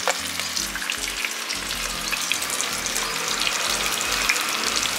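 Chicken, onions and tomatoes frying in hot oil in a pan: a steady sizzle with small crackles and spits.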